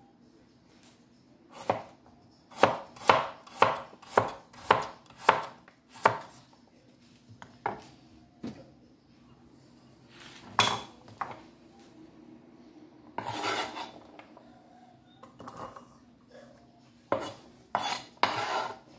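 Kitchen knife chopping beetroot on a wooden cutting board: a run of sharp chops about two a second, then scattered cuts. About two-thirds of the way through there is a longer scrape, and three more quick chops come near the end.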